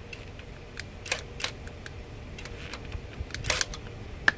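Scattered light metallic clicks and taps, the loudest about a second in, around three and a half seconds in and near the end: a cordless impact wrench and its socket being handled at a just-loosened lug nut, with the wrench not running.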